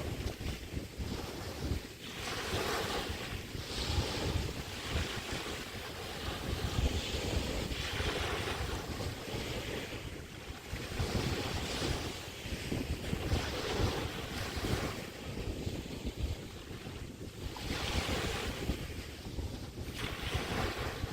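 Small waves from the Chesapeake Bay breaking and washing on the beach, swelling and fading every few seconds, with wind buffeting the microphone.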